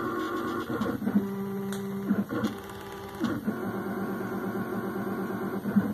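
Stepper motors of a DIY CNC router whining as the machine runs its automatic touch-plate zeroing sequence. The pitch shifts about once a second as it moves from one step to the next, with short clicks at each change.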